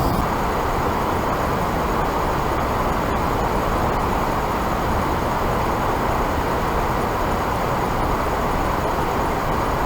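Steady rush of water pouring over a dam: an even, unbroken roar with no changes.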